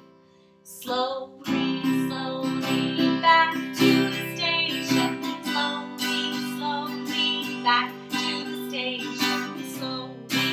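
A woman singing a children's song to her own strummed acoustic guitar. Guitar and voice come in about a second in, after a brief near-quiet pause.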